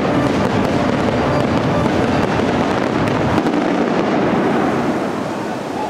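Fireworks going off in a rapid barrage of bangs and crackling, easing slightly near the end.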